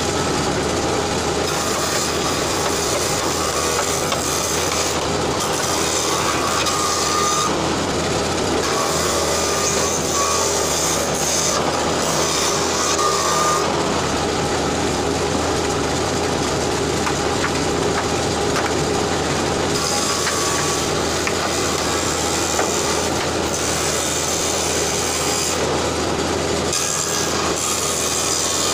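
Wood shaper's spindle cutter running steadily while a long pine board is fed along it to cut a groove. The cutting noise swells and eases repeatedly over the motor's constant sound.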